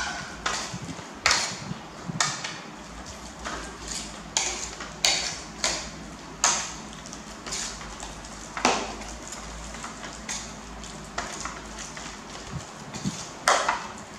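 Metal spoon stirring a thick, wet mix of shredded potato, pork and flour in a ceramic bowl, clinking and scraping against the bowl at irregular intervals, about one or two knocks a second.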